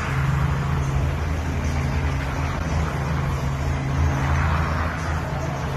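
Helicopter running steadily with a low, even engine drone.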